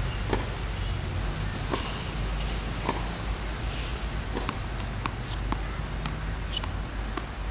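Scattered sharp pops of tennis balls struck by rackets and bouncing on a hard court, at irregular intervals, over a low steady background hum.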